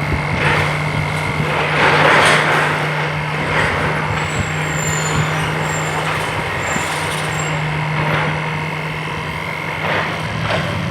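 A heavy diesel vehicle's engine running steadily in street traffic, with a steady low hum and a thin high whine, and a louder rush of noise about two seconds in.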